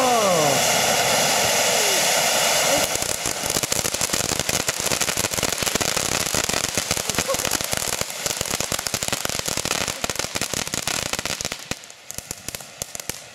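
Small Category 1 fireworks fountains burning with a steady rushing hiss. From about three seconds in, dense crackling takes over, and it thins out and quietens near the end.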